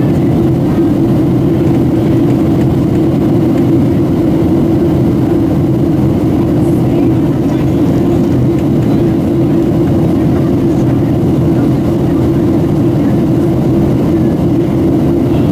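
Steady cabin noise inside a Boeing 737-700 in flight on descent: the even hum of its CFM56 turbofan engines mixed with air rushing along the fuselage, heaviest in a low band and unchanging.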